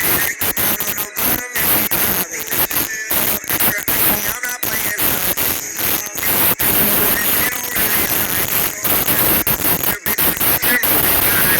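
Loud hissing static noise that cuts in and out in short, choppy dropouts, with music faint beneath it.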